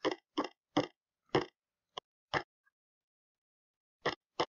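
Short choppy snippets of a video's soundtrack, each about a tenth of a second, coming in an irregular series with a pause of about a second and a half after the middle: the footage's audio chopped up as it is stepped through frame by frame in an editor.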